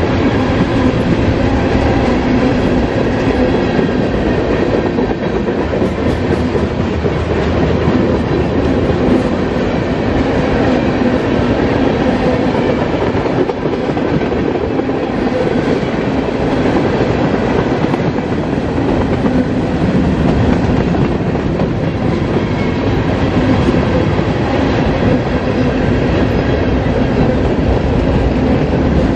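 Freight train cars rolling past, their steel wheels running steadily over the rails.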